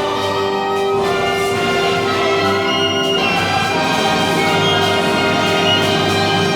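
A full orchestra with prominent brass playing sustained chords, the harmony shifting about three seconds in.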